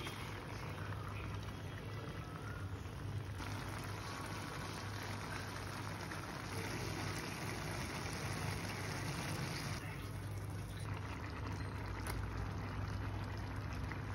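A pot of vegetable broth with instant noodles boiling, a steady bubbling hiss over a low hum. The texture changes abruptly twice.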